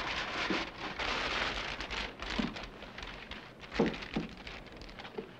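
Brown paper grocery bag rustling and crinkling as it is shaken open and filled on a shop counter, with a few light knocks about four seconds in.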